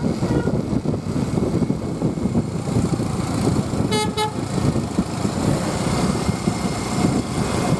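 Steady, loud road and engine rumble of moving traffic, with two short toots of a vehicle horn at the same pitch about four seconds in.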